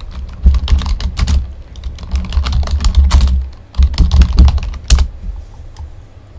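Typing on a computer keyboard: quick runs of key clicks with dull thumps, a short pause about three and a half seconds in, and the typing stops after about five seconds.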